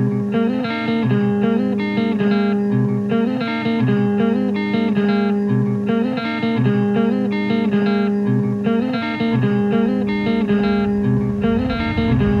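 Guitar music: a slow, repeating figure of plucked guitar notes over a steady held low note, looping without change.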